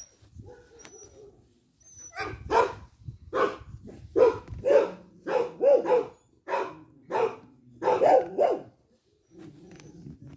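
A dog barking repeatedly: a run of about nine short barks starting about two seconds in and stopping a little before the end.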